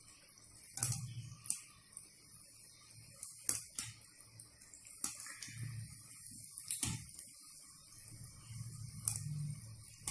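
Stuffed bread rolls deep-frying in hot oil: a faint sizzle with sharp crackles and pops every second or so.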